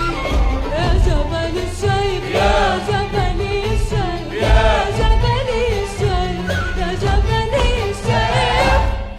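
Arabic song with singing over a band and a steady beat, the closing bars of the track, which fades out at the very end.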